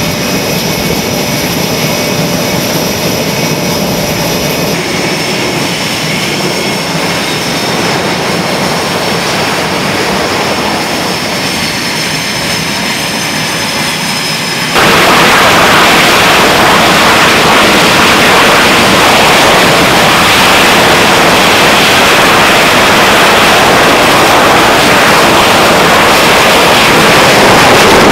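F/A-18 twin jet engines running on an aircraft carrier's flight deck: a steady, loud roar with high whining tones. About halfway through, the noise steps suddenly louder and stays as a heavier, fuller roar.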